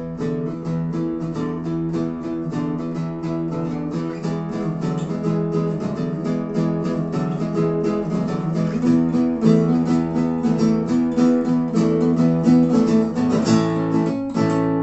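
Acoustic guitars playing an instrumental break with steady, rhythmic strummed chords and no singing.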